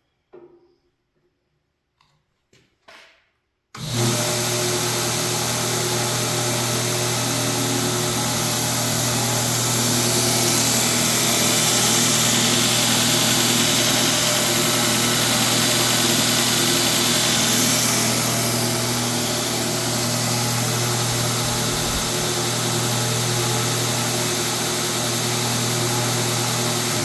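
A few faint clicks, then about four seconds in a belt grinder's 1.5 hp, 3600 RPM electric motor comes on suddenly and runs steadily, the belt running over the flat platen with a strong hum and a high hiss.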